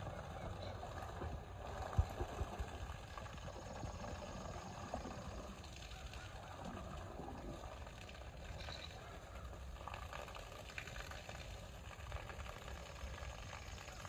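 Water splashing and sloshing as a brown bear moves about in a pond under a falling stream of water, with a few sharper splashes about two seconds in, over a low steady rumble.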